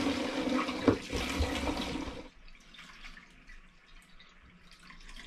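Apple mead pouring from a glass demijohn through a plastic funnel into a plastic jug, a splashing stream with a single knock about a second in. A little after two seconds the pour drops to a quieter, uneven trickle.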